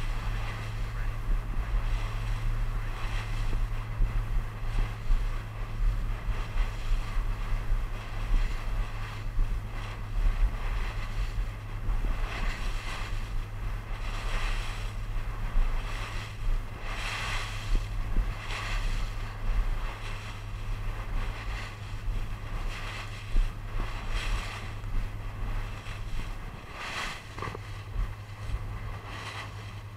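Motorboat engine droning steadily under the rush and splash of water against the hull, with wind buffeting the microphone in repeated gusts.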